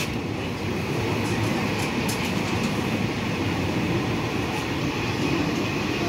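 Passenger train running steadily on the rails, heard from on board: a continuous low rumble of wheels and carriage, with a few faint clicks.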